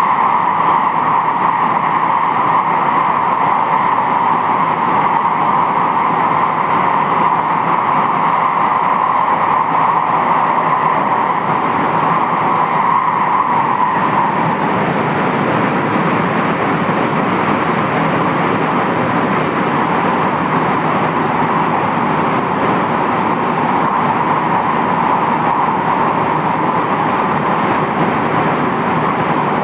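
Interior running noise of a JR West 223-5000 series electric multiple unit travelling between stations: a steady rumble of wheels on rail with a mid-pitched hum that weakens slightly about halfway through.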